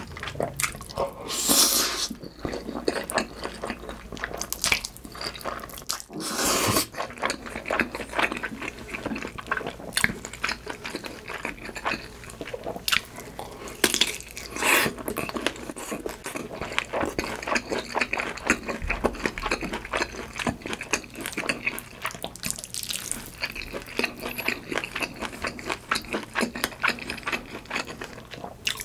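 Close-miked eating of a meal of cheesy mi goreng noodles, kielbasa sausage and hash brown: steady wet chewing full of small clicks, with a few louder short bursts.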